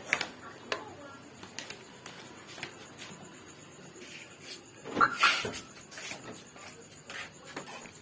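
Plastic parts of a mini car vacuum cleaner being handled: scattered light clicks and knocks, with a louder clatter about five seconds in. The vacuum motor is not running.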